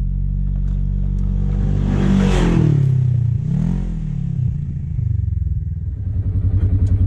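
Polaris Ranger XP1000 side-by-side's engine running, revving up and dropping back about two seconds in, with a second short rev near four seconds, then settling into an even, pulsing low-speed run.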